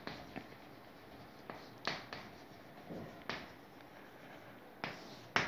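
Chalk writing on a chalkboard: a handful of faint, short taps and scratches as letters are written, the clearest about two seconds in and twice near the end.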